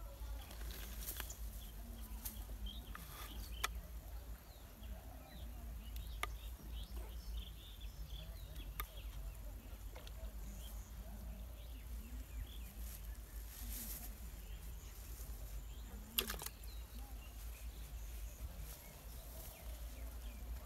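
Outdoor ambience: a steady low rumble, with a few sharp clicks scattered through it (the loudest about three-quarters of the way in) and faint high chirps.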